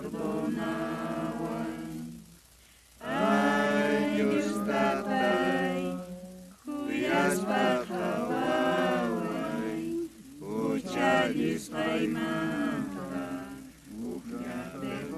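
A congregation singing a hymn together, unaccompanied. A mix of voices holds long notes in phrases of a few seconds, with short breaks between them.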